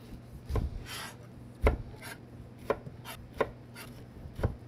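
Chef's knife slicing the rind off a whole pineapple in downward strokes, each cut ending in a knock on the cutting board, about seven times at an uneven pace.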